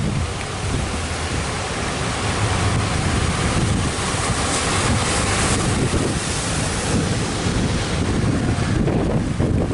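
Ocean surf breaking and washing, with strong wind buffeting the microphone; the wash of a wave grows louder about halfway through.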